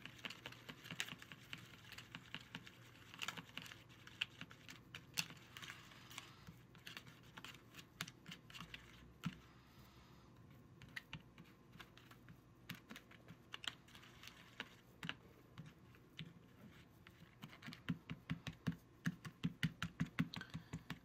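Small plastic spoon stirring gummy candy mix in a plastic tray well, clicking and scraping against the hard plastic sides and bottom in light, uneven taps. Near the end the clicks come faster and louder, about four a second.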